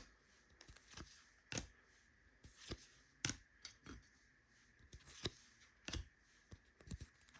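Trading cards being handled: faint, short crisp clicks and flicks at irregular intervals as cards are slid and flipped one by one.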